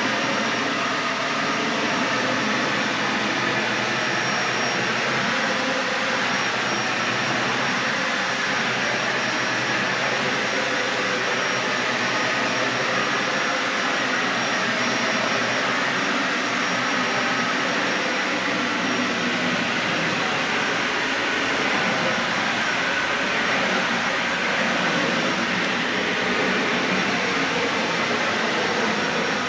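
Dyson Ball Animal 3 Extra upright vacuum cleaner running steadily as it vacuums carpet, a loud, even rushing whine of motor and airflow.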